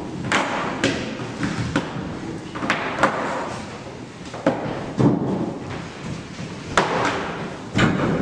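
Mobile phones being set down on a desk amid students moving about: irregular knocks and thuds, about eight clear ones, over shuffling room noise.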